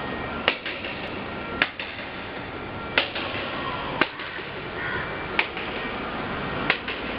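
Sharp knocks, about one a second, over a steady background noise.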